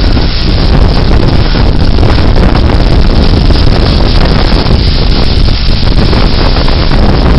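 Damaging severe-thunderstorm winds blowing hard and buffeting the microphone: a loud, steady rush of wind noise, heaviest in the low rumble.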